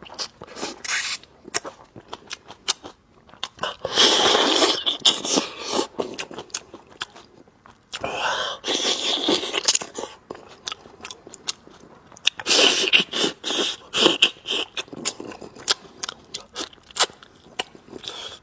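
Close-miked eating of meat on the bone: chewing and crunching with many sharp wet clicks, and three longer, louder noisy stretches about four, eight and twelve seconds in.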